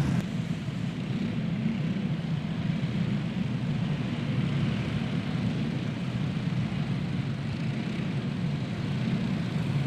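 Several Predator-engined racing karts running slowly as a group under caution, a steady, even engine drone.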